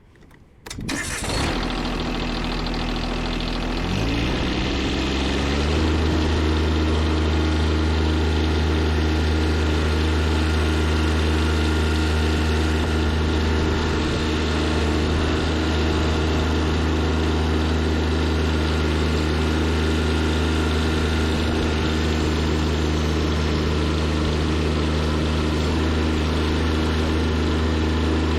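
Tractor engine starting about a second in, then throttled up over a couple of seconds and running steadily at a higher speed.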